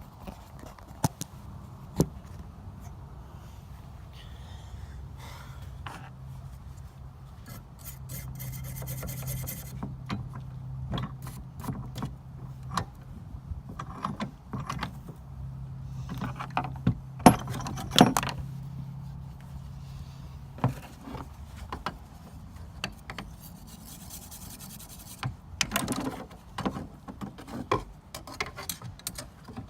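Tools and metal being handled on a work bench: scattered clicks, knocks and scraping. A low steady hum runs through the middle.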